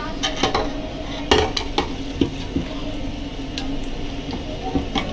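Metal spoon scraping and clinking against a steel cooking pot as chicken gravy is scooped out, a few sharp clinks at irregular times over a steady low hum.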